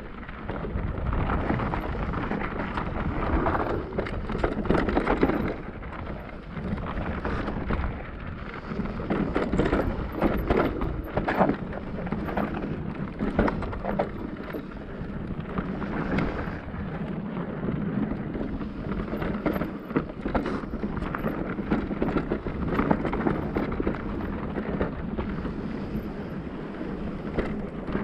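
Cube Stereo Hybrid 160 e-mountain bike riding a rough trail: tyres rolling and crunching over gravel and rocks, with frequent clicks and knocks from the bike rattling, and wind rumbling on the microphone.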